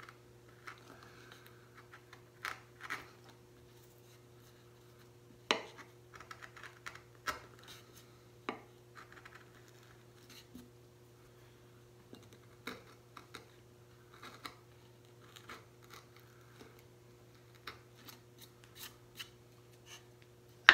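Small hand carving gouge cutting into a wooden woodcut block: short scraping, scratchy cuts at irregular intervals, over a faint steady hum.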